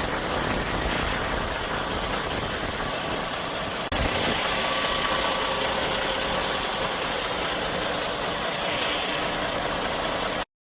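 Road train truck engine running with steady road noise. There is an abrupt edit about four seconds in, and the sound cuts off suddenly near the end.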